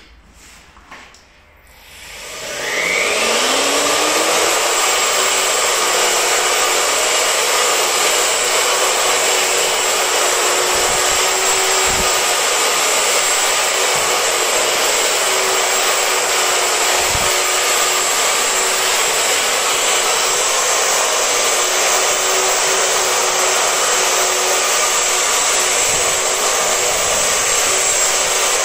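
Electric motor spinning up about two seconds in, its whine rising in pitch, then running loud and steady at a constant high speed.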